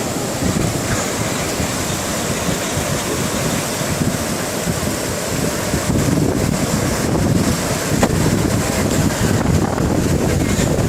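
Steady rush of flash-flood water pouring across a highway, mixed with wind buffeting the microphone.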